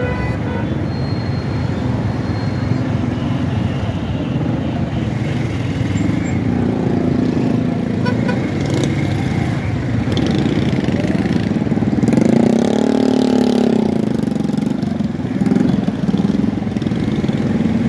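Dense road traffic close around: car and motorcycle engines running with steady road noise. About twelve seconds in, one nearby engine rises in pitch and falls back again, and a shorter rise follows soon after.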